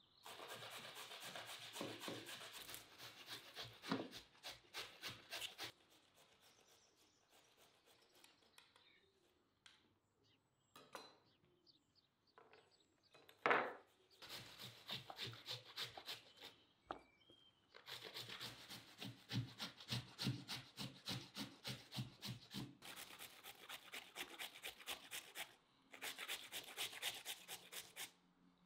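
Carrots grated by hand on a handheld flat metal grater into a plastic bowl: runs of quick rasping strokes, several a second, broken by a quieter stretch in the middle. There is one sharp knock about halfway through.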